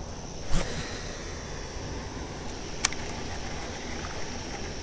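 A baitcasting reel being cranked to retrieve a buzz bait, under a steady outdoor hiss with a faint high insect drone. There is a brief louder sound about half a second in and a single sharp click near three seconds.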